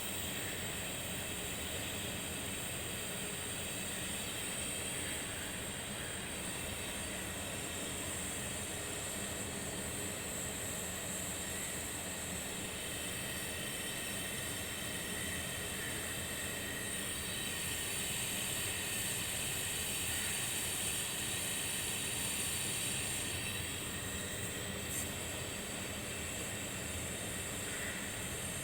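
Steady machine hum under a high hiss, unchanging throughout.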